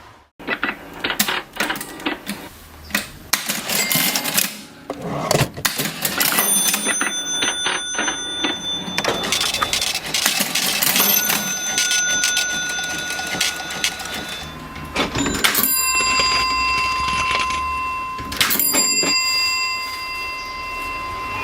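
Vintage mechanical cash register being worked: a busy run of key clacks and mechanism clatter, with its bell ringing about four times, each ring lingering for a second or more.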